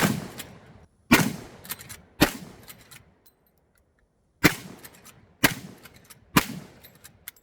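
Six shots from a Marlin 1895 SBL lever-action rifle in .45-70: three about a second apart, a pause of about two seconds, then three more, each with a short fading echo. A couple of faint clicks come just before the end.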